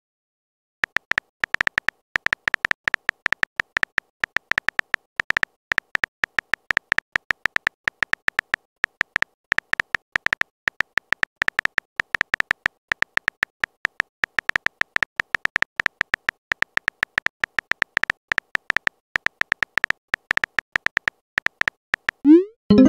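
Phone keyboard typing sound effect: rapid, irregular clicks as a text message is typed out letter by letter, ending with a short rising tone near the end.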